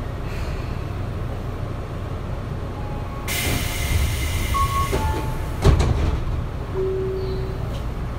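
Inside a Tobu 9050-series commuter car at a station stop: a sharp burst of compressed-air hiss about three seconds in as the door engines work, then a thud near six seconds in, over the steady low hum of the car. A few short steady tones sound in between.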